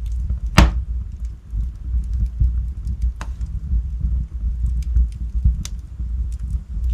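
Log fire in a fireplace burning with a steady low rumble and scattered crackles. A loud sharp pop comes about half a second in, with further pops near three seconds and five and a half seconds.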